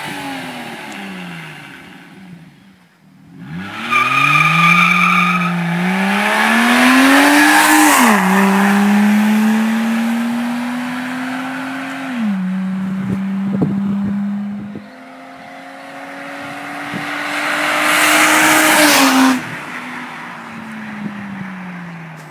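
2010 Mazda CX-9's V6 running with the muffler unbolted, so the stock exhaust is open and loud. The engine note falls away as it passes, then climbs hard under acceleration, dropping sharply at each upshift, about eight and twelve seconds in. It rises again to a peak near the end before fading. A brief high squeal is heard about four seconds in.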